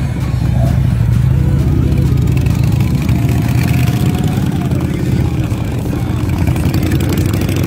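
A line of large touring motorcycles riding past one after another, their engines running loudly.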